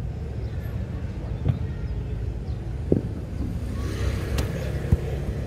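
A football being kicked and bounced on an artificial-turf pitch: three sharp thuds of the ball, about a second and a half to two seconds apart, over a steady low rumble.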